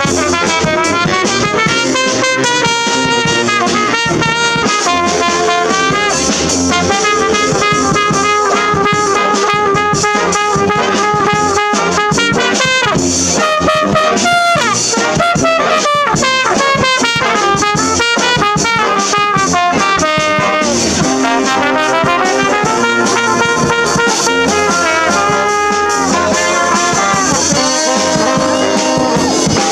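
Brass band playing a lively tune, trumpets and trombones together over steady percussion.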